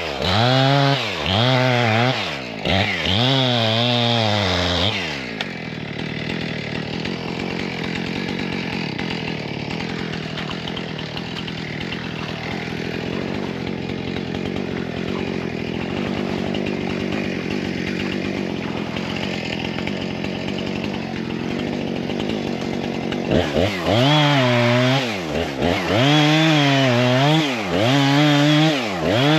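Chainsaw revving up and down in quick repeated pulses, settling to a steady idle after about five seconds, then revving in pulses again for the last six seconds.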